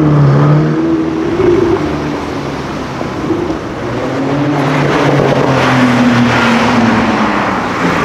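Supercar engine and exhaust: a steady engine note for the first second or so, then the note changes and builds again, loudest in the second half as the car drives by, with its pitch falling near the end.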